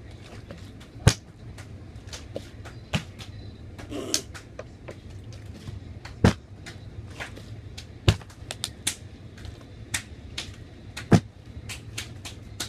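Large plastic water bottle being flipped again and again, knocking down onto the floor with a sharp thud every second or two, with lighter clicks and handling taps between the landings.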